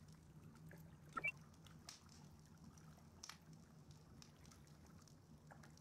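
Near silence: a faint steady low hum of room tone with a few soft clicks. About a second in there is one brief rising squeak.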